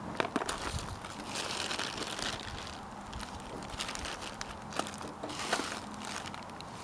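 Rustling and crinkling as small items are rummaged through by hand, in several uneven bursts, with a few light clicks near the start.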